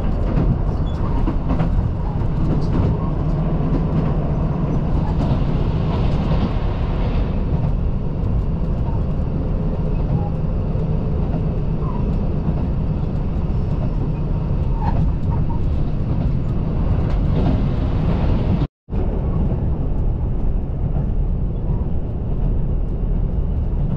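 KiHa 85 diesel railcar under way, heard from inside the passenger car: the steady rumble of its Cummins diesel engines and wheels on the rails. The sound cuts out for a split second about nineteen seconds in.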